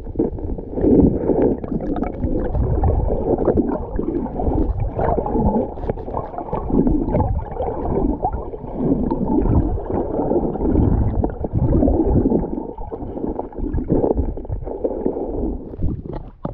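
River water gurgling and churning around a camera held underwater, heard muffled and deep, swelling and fading in uneven surges with a Weimaraner moving through the water close by.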